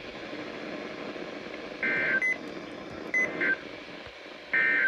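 NOAA Weather Radio SAME end-of-message signal: three short, buzzy digital data bursts about a second apart, over steady radio hiss. This closing signal marks the end of the weekly test broadcast.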